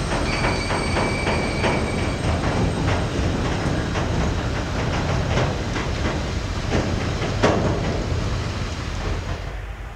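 Loaded freight hopper wagons rolling past with a steady rumble and irregular clicks and clanks of wheels over the rail joints, one louder clank about seven and a half seconds in. A thin high wheel squeal runs through the first couple of seconds, and the sound drops off just before the end.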